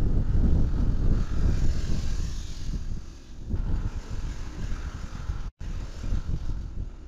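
Wind rumbling on an outdoor camera microphone, with a fainter steady hiss above it. The sound drops out for an instant about five and a half seconds in.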